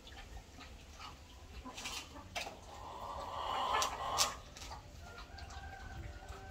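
Chickens clucking, loudest a little past the middle, over the sharp clicks and crunches of a dog eating from a bowl.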